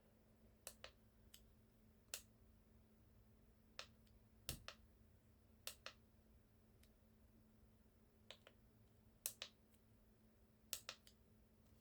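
Sparse sharp clicks in near silence: about a dozen single and paired ticks at irregular intervals.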